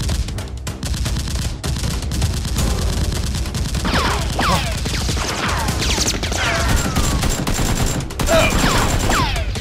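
Rapid automatic gunfire sound effects, a dense continuous fusillade standing in for the Nerf blasters' shots. From about four seconds in, many falling whistling sounds run over the shots.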